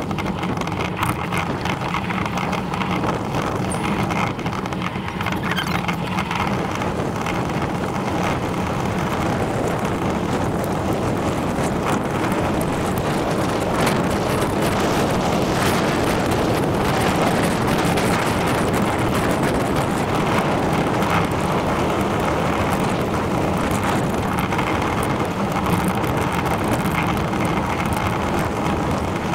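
Steady wind rushing over the microphone of a camera on a moving bicycle, mixed with the tyres rolling on a tarmac lane.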